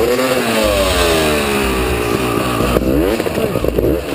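Off-road motorcycle engine revving up and down as the bike is ridden and heaved up a steep, rocky bank, the pitch rising and falling several times under load.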